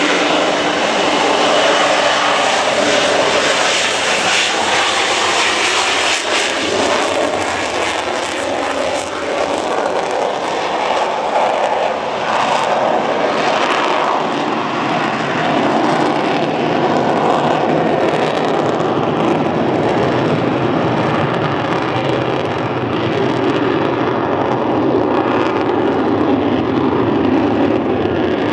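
Aircraft engine noise, a loud, steady rushing sound with a faint whine near the start.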